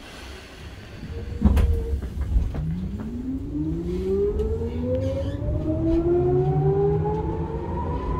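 Tokyu 8500 series electric train pulling away from a station, heard from inside the car: a thump about a second and a half in, then the traction motors' growl, a whine of several tones climbing steadily in pitch as the train gathers speed, over a low rumble.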